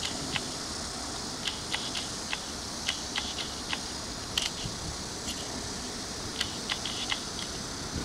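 Irregular short clicks and ticks from the Tamron 18-200mm VC zoom lens's focus and stabiliser mechanism, picked up by the camera's own microphone over a steady hiss.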